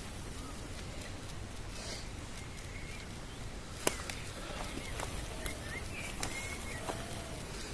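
Woodland ambience: a steady low rumble with faint, scattered bird calls. There is a single sharp click about four seconds in.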